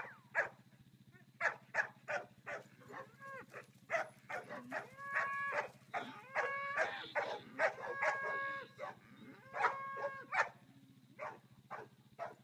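Cattle bawling in drawn-out calls, four of them from about five seconds in, among many short, sharp animal calls that are typical of a dog barking while it works the herd.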